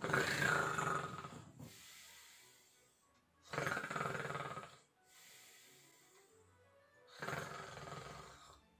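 A man snoring: three long snores, about three and a half seconds apart, over quiet background music.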